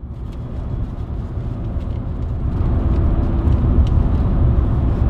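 Steady low road and engine rumble heard from inside a vehicle's cab while it drives along a highway, growing louder over the first few seconds and then holding steady.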